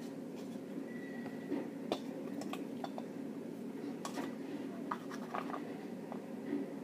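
Light scattered clicks and scrapes of a utensil poking and pushing a mixture through a plastic funnel cut from a bottle top, over a steady low hum.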